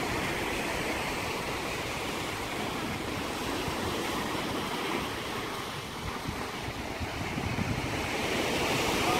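Small sea waves breaking and washing over sand and rocks: a steady surf wash that eases a little partway through and swells again near the end.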